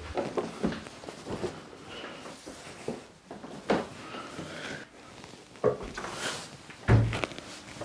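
Footsteps and the rustle of a towel and clothes being carried, with scattered light knocks and a heavier thump near the end.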